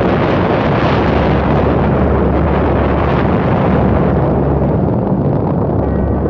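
Long, loud explosion rumble: a continuous roar of noise with a heavy low end. Its upper part slowly dies away toward the end.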